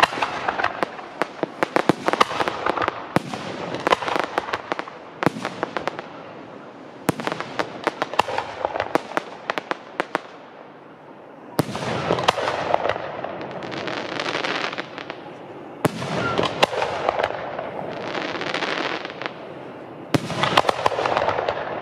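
Fireworks display: rapid sharp bangs and crackling for about the first ten seconds, then three sudden louder bursts, each followed by a few seconds of crackling.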